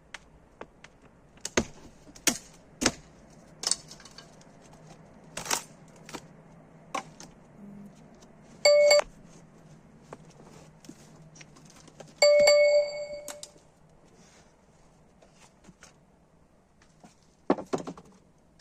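Hand-work noises: scattered knocks and clicks, and twice a loud metallic ring, the second dying away over about a second.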